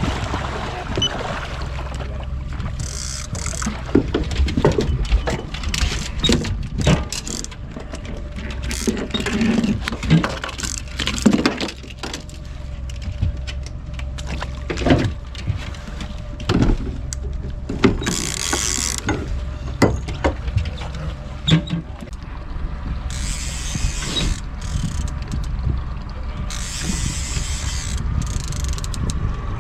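Irregular clicks, clatters and knocks of fishing gear being handled aboard a boat, over a steady low hum.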